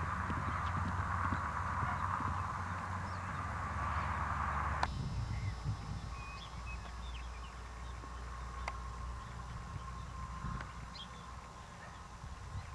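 Horses galloping on dry dirt, a quick run of hoofbeat thuds, for about the first five seconds. Then the sound changes abruptly to a quieter outdoor background with a few faint high chirps.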